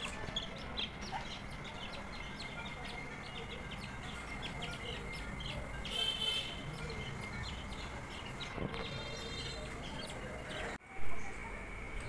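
Budgerigar chicks cheeping: many short, faint high chirps, with a stronger call about halfway and a buzzy call a little later. A short louder sound comes near the end.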